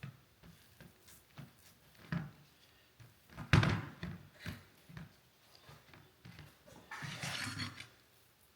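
Wooden strips being handled and set down on a workbench: a series of light knocks and clicks, with one sharp wooden knock about three and a half seconds in and a brief rubbing, scraping sound near the end.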